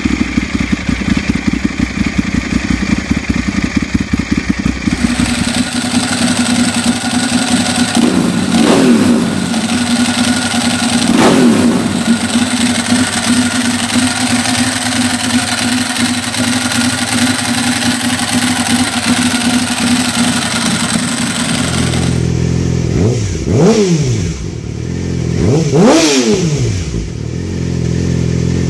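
Ducati Monster 796 air-cooled L-twin idling with a lumpy, pulsing beat through a Comp Werkes slip-on exhaust. Then a Ducati Monster 1100 L-twin idles through an SC Project 2-1 exhaust, with two short throttle blips. Near the end, a Yamaha R6 inline-four with a Graves full exhaust is revved in sharp blips, about three times.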